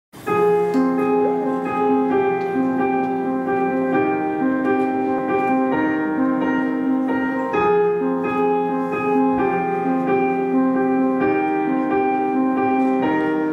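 Yamaha stage piano playing a slow, repeating figure of notes over a held low note: the instrumental opening of a pop ballad, played live.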